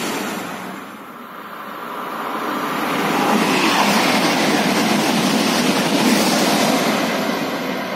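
TGV high-speed train passing beneath at speed: a rushing noise of air and wheels on rail that swells about two seconds in, stays loud, and eases off near the end.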